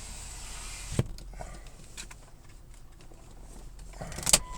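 Inside a car, a steady running noise stops with a sharp click about a second in. A loud clack comes near the end.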